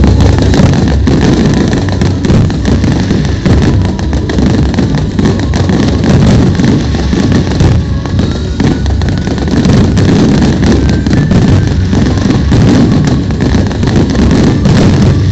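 Fireworks display: a loud, continuous run of bangs, pops and crackles.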